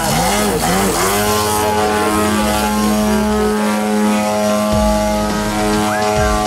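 Propeller-driven engine of a large radio-controlled Sukhoi 29S aerobatic model plane. Its pitch swings up and down several times a second for about the first second, then it holds a steady drone at constant throttle.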